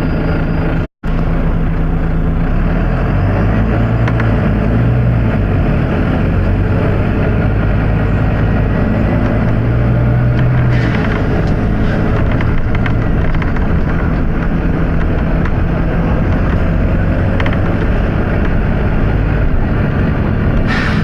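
Volvo B9TL double-deck bus's six-cylinder diesel engine running, its note stepping up about three seconds in and again around ten seconds as the engine speed changes. The sound cuts out completely for a moment about a second in.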